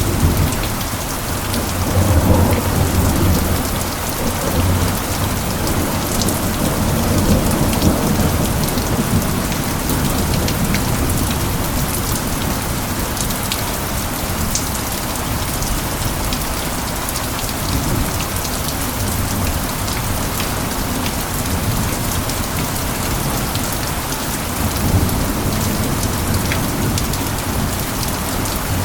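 Steady heavy rain falling, with fine ticks of individual drops. Low thunder rumbles through the first several seconds and swells again near the end.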